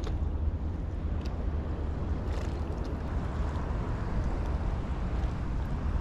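Wind buffeting the action camera's microphone: a steady low rumble, with a few faint clicks about a second and two seconds in.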